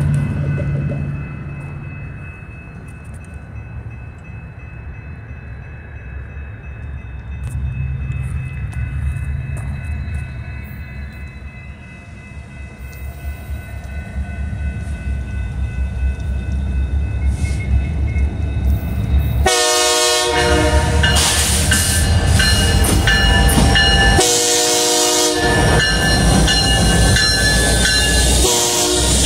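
BNSF diesel freight train approaching, the low rumble of its locomotive engines growing louder. About two-thirds of the way in the lead locomotive's air horn starts sounding in long blasts, with short breaks, as the locomotive consist passes close by.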